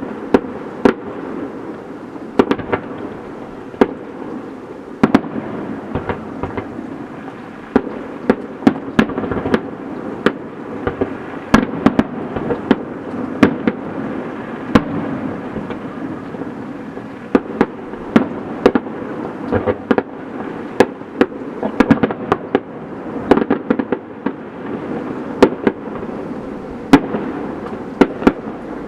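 Fireworks display: sharp bangs of bursting shells go off irregularly, often more than one a second, over a continuous crackle.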